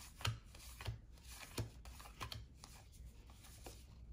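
1991-92 Fleer basketball trading cards being flipped through one at a time, a soft papery flick or slide about every two-thirds of a second.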